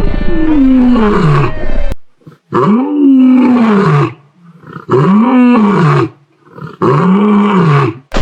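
An animal's loud, pitched calls: one falling call, then three long moaning calls that each rise and fall in pitch, with short gaps between them.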